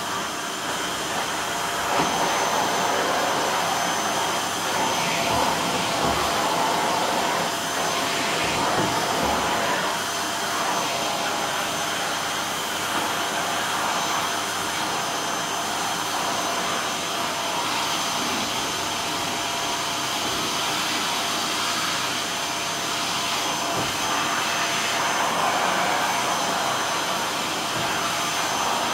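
Canister vacuum cleaner running continuously: a steady rush of suction with a thin high whine from the motor.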